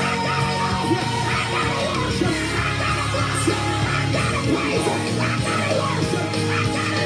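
Gospel praise-and-worship song playing: a woman singing lead over a full band.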